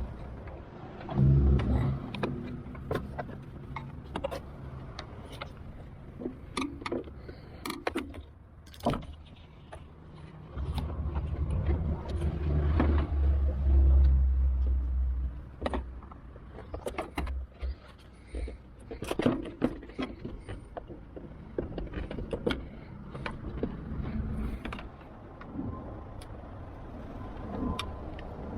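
Scattered clicks, knocks and rattles of hand work on a Nissan Elgrand van's door as its trim and fittings are taken off, with a low rumble at times.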